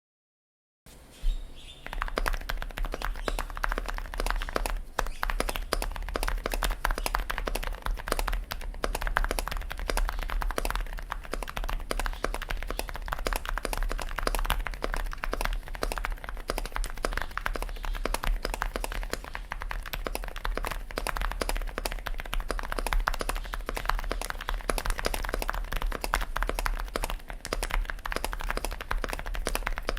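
Fast, continuous typing on a Sugar65 gasket-mounted mechanical keyboard with an aluminium plate, stock JJ silent linear switches and Pono-clone keycaps: a dense patter of muted keystrokes that starts about a second in. A steady low hum sits underneath.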